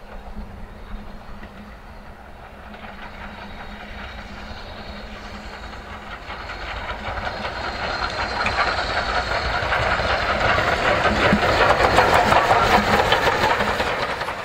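BR Standard Class 4 2-6-4 tank steam locomotive 80135 working a train on the move, with chuffing, hiss and wheel clatter. It grows steadily louder as it approaches and is loudest a couple of seconds before the end.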